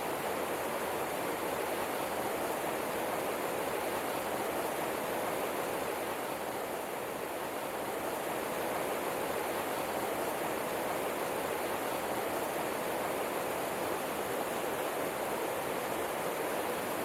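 Steady rushing of running water, an even, unchanging wash of noise.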